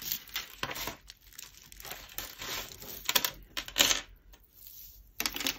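Costume jewellery (beads, chains and small metal pieces) clinking and rattling as it is handled and dropped back into a pile, in a string of short clatters, the loudest a little before the four-second mark.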